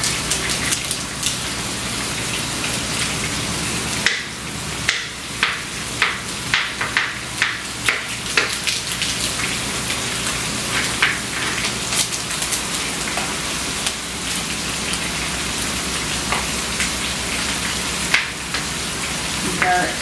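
Food sizzling in hot oil in a frying pan: a steady hiss with irregular crackling pops, several a second from about four seconds in, thinning out toward the end.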